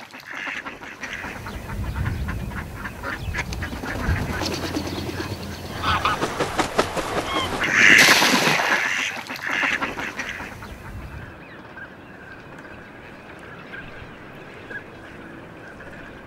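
Tame decoy ducks quacking in a duck trap's pool, with a loud noisy burst about eight seconds in; the sound falls much quieter after about eleven seconds.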